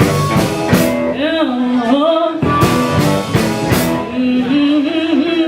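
Live blues band playing: electric guitar and a singing voice over drum hits.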